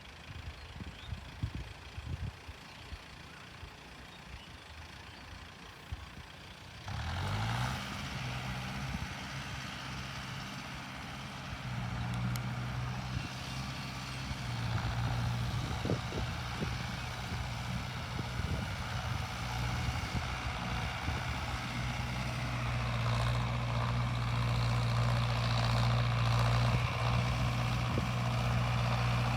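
Mahindra Arjun Novo 605 DI tractor's diesel engine cutting in about seven seconds in with a quick rise in pitch, then running steadily and growing louder toward the end. Before that, only faint low rumbles and knocks.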